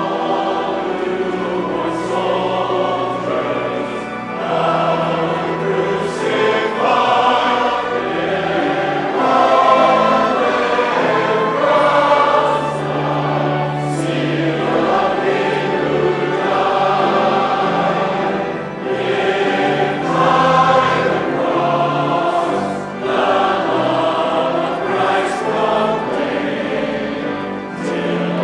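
A choir singing with sustained, slowly moving notes.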